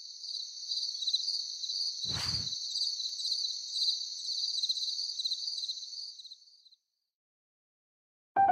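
Insects trilling in a high, finely pulsing chirr, with a single short low thud about two seconds in. The trilling fades out a couple of seconds before the end, and piano music starts right at the end.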